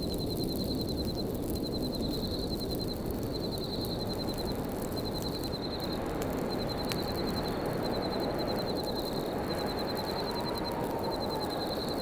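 Steady wind blowing with a faint whistle that slowly rises and falls in pitch, and a campfire crackling with occasional small pops. Over it, a high, rapid chirping trill repeats about once a second.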